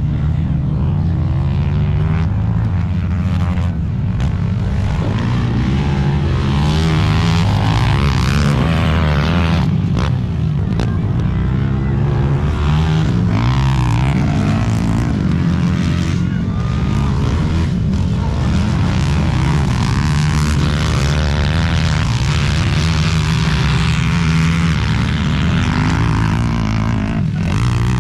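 Motor engines running loudly and steadily, their pitch wavering up and down as they rev.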